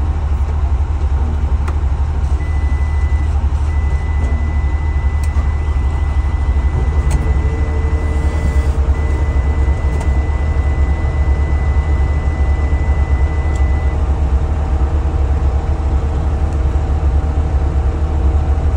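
Cummins diesel engine of a JLG 1255 telehandler idling steadily, heard from inside the cab. A thin high steady tone starts about two seconds in, breaks off twice briefly and stops about fourteen seconds in.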